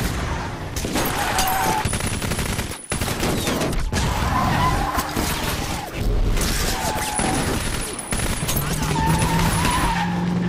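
Sustained automatic gunfire in rapid, continuous bursts, mixed with car engines and wavering squeals at intervals from tyres.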